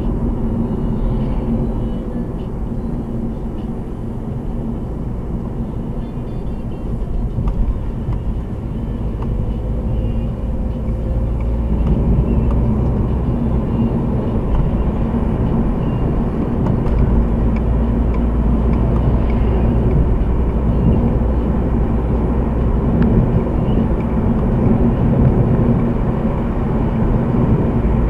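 Car driving noise heard from inside the car: a steady low engine and tyre rumble that grows louder about twelve seconds in as the car picks up speed.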